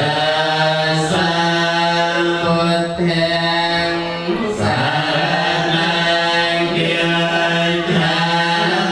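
Buddhist chanting: voices in unison on one steady, low pitch, held in long phrases with short breaks for breath.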